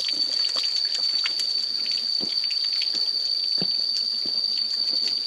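Small cascading waterfall trickling and splashing, with many scattered drips. A steady high-pitched whine, louder than the water, runs throughout.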